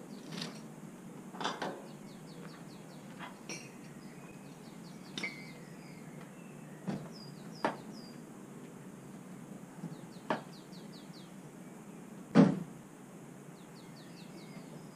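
Scattered knocks and clinks of things being handled, about a dozen over the stretch, with one much louder knock about twelve seconds in. Small birds chirp in quick high runs in between.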